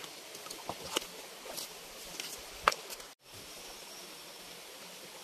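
Stones clicking and knocking as hands dig through a muddy, rocky stream edge, several separate knocks with one sharper one near the middle, over a steady background hiss. The sound breaks off briefly about three seconds in.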